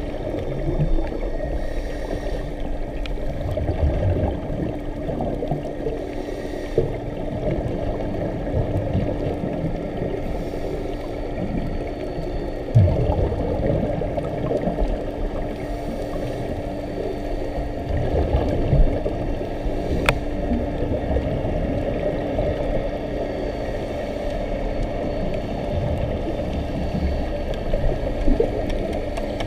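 Underwater sound of scuba diving: a muffled rumble with the gurgle of divers' exhaled regulator bubbles and a steady low hum.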